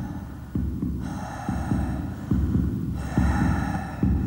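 Ominous synthesized music: a low pulsing beat of repeated deep thumps, with a higher sustained chord that swells in for about a second roughly every two seconds.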